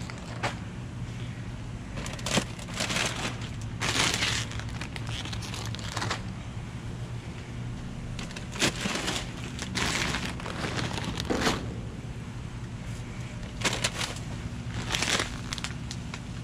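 Plastic trash bags and foil snack-chip bags crinkling and rustling in irregular bursts as a gloved hand digs through them in a dumpster, over a steady low hum.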